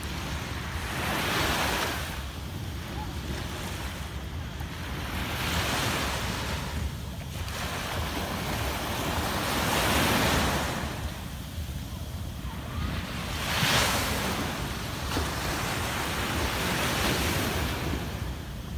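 Small waves breaking and washing up a sandy beach, swelling about every four seconds, five times, with wind rumbling on the microphone.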